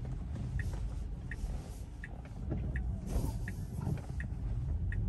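Tesla turn-signal indicator ticking evenly, about three ticks every two seconds, over the low rumble of road noise inside the cabin as the car turns at an intersection.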